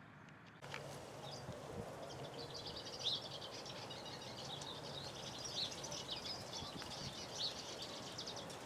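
Many small birds chirping at once: a dense, overlapping run of short high chirps over a steady background hiss, starting abruptly about half a second in.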